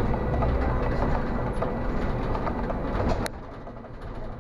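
Tram running along a city street, heard from the driver's cab: a steady rumble of traction motors and wheels on rail with faint steady whines. About three seconds in a sharp click comes and the noise drops suddenly to a lower level.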